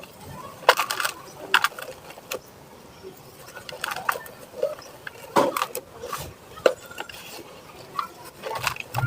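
Dry cement balls and chunks crumbling and cracking, in irregular sharp crunches, the loudest about a second in and again about five and a half seconds in.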